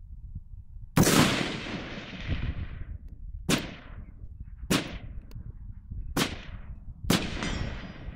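Five rifle shots from a Palmetto State Armory AR-15, fired singly at an uneven pace, each followed by a short echo dying away. The first shot, about a second in, is the loudest and rings on longest.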